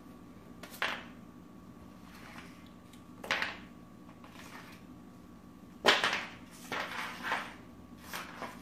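A leather wallet scraping and knocking on a wooden floor as a cat drags it in its mouth: a few short, separate scrapes, with a cluster of them in the second half.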